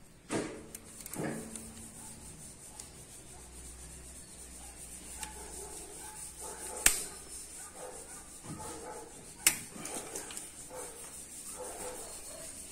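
Wrench and angle gauge working the cylinder head bolts of a G4GC engine's aluminium head, turning them through a final 65-degree angle-torque step. Three sharp metallic clicks stand out, one near the start and two in the second half, with lighter knocks and rubbing between.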